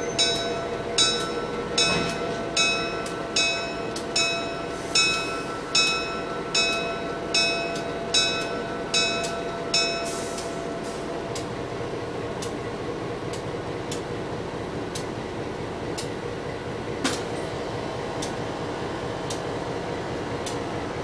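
A locomotive bell ringing steadily, about one strike every 0.8 seconds, stops about ten seconds in. The train's low, steady running noise goes on throughout, with a few faint clicks.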